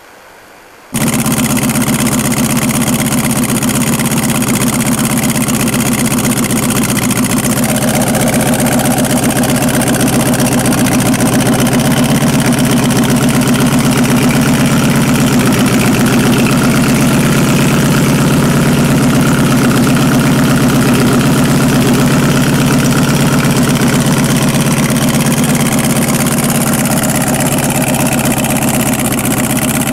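Homebuilt 1000cc V8 snowmobile engine with eight carburettors comes on abruptly about a second in, then idles steadily through its twin exhaust pipes.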